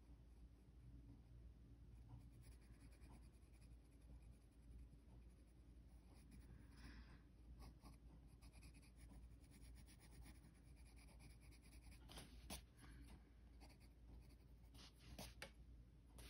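Very faint scratching of a pencil on drawing paper in short, irregular shading strokes, with a few sharper ticks near the end.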